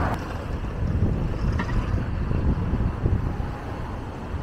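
Wind buffeting a small handheld camera's microphone, an unsteady low rumble.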